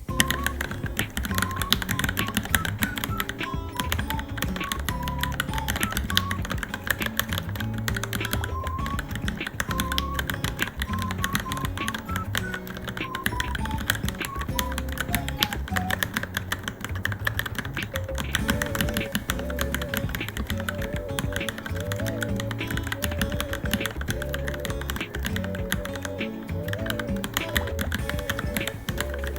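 Fast, continuous typing on a Varmilo Minilo mechanical keyboard, a dense run of key clicks, with background music playing over it.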